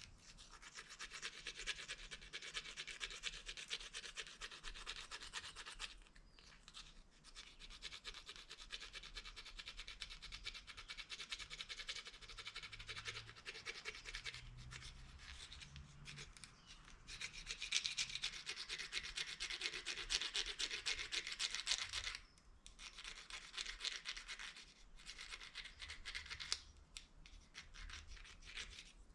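The last prong of a broken plastic fork rapidly scraping back and forth along the edge of a plastic spoon to sharpen it: a fast, raspy plastic-on-plastic scratching with a few brief pauses, loudest about two-thirds of the way through.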